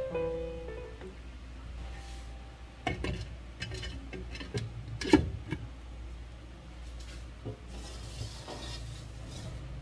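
A spatula knocking and scraping in a frying pan of simmering broth, then a glass lid set down on the pan with a clink, the loudest knock about five seconds in.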